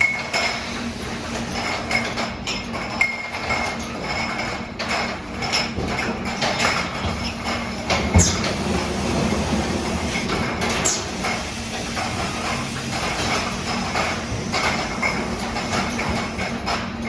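Geninox automatic filling machine running on a salsa jar filling line: a steady mechanical hum with irregular clicks, knocks and clatter from the jars and the machine's moving parts, one sharper knock about halfway through.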